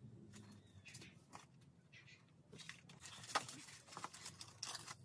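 Light clicks and taps of plastic toy kitchen pieces being handled and set against the plastic kitchen unit, a few scattered knocks with the sharpest about three and a half seconds in.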